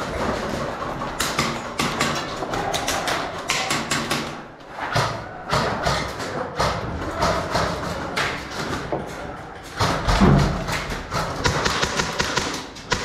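Footsteps climbing a staircase, an irregular run of knocks and taps with gear rattling, and a louder thump about ten seconds in.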